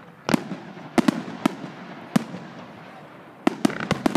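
Aerial fireworks bursting: about ten sharp bangs at uneven intervals, several in quick succession near the end.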